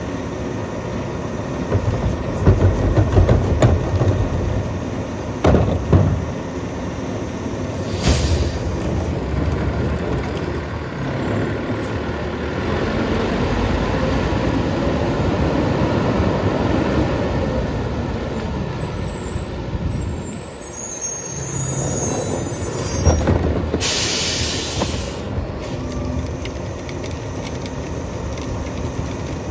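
Western Star garbage truck with a Pak Mor rear-loader body working, its diesel engine running throughout. A cart tipper dumps a bin with several clanks in the first few seconds, and there is a short sharp air hiss about eight seconds in. The engine then revs up under hydraulic load as the packer blade runs its compaction cycle, rising and falling over several seconds, with another air hiss about twenty-four seconds in.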